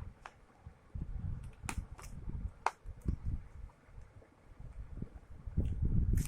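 Handling noise from a smartphone and its packaging being handled close to the microphone: irregular low bumps and rubbing with a few sharp clicks.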